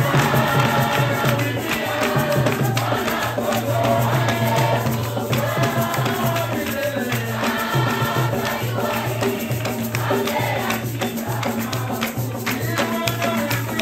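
Upbeat gospel praise music: voices singing together over a steady beat with a rattle or shaker and a bass line.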